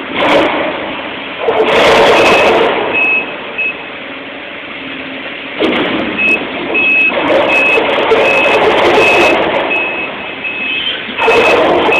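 Link-Belt excavator demolishing a thick-walled steel sphere: loud stretches of heavy machinery and metal-working noise that come and go, with a machine's backup alarm beeping about twice a second through the loud stretches.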